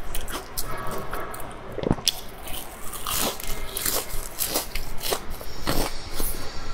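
Close-up eating sounds: biting and chewing a glazed, sesame-crusted pastry, with a run of sharp crunches and sticky crackles.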